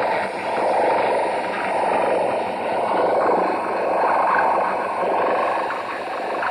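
Radio giving off a loud, steady rushing noise that swells and eases a little, centred in the low-middle range like static through a small speaker.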